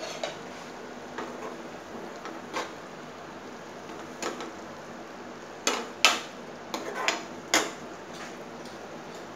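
A steel spoon knocking and scraping against a non-stick frying pan while stirring a thick okra curry. A few light clicks come first, then a cluster of louder clinks past the halfway point.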